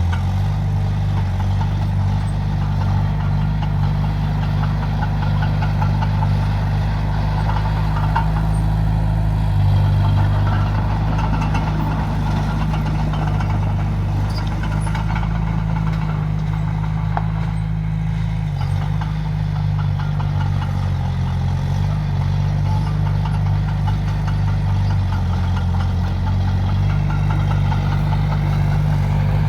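Heavy diesel engine of earthmoving machinery running steadily, with small shifts in engine speed about ten seconds in and again just before twenty seconds.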